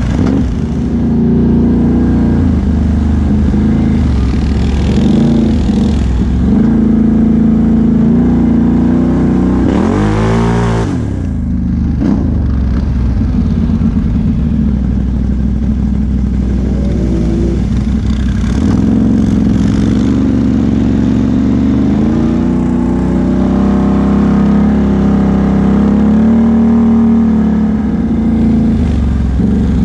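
ATV engine running under throttle, the V-twin of a Can-Am Outlander XMR 1000 with a Big Gun aftermarket exhaust. It revs up and back down about a third of the way in, and again briefly a few seconds later.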